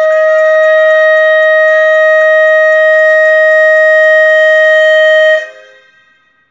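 Clarinet holding one long, loud high note, which cuts off about five seconds in and rings away to silence.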